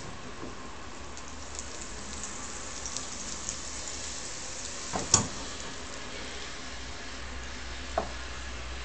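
Butter melting in a saucepan on an electric hob, with a faint, steady sizzle and small crackles. A sharp knock comes about five seconds in, and a lighter one near the end.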